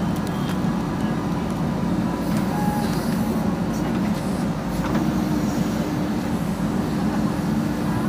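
JCB 3DX backhoe loader's diesel engine running steadily under hydraulic load as the backhoe arm digs and swings a bucket of mud.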